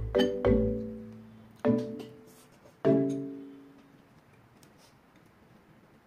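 Soft background music: a few struck chords, each ringing out and fading, the last one about three seconds in dying away to near silence.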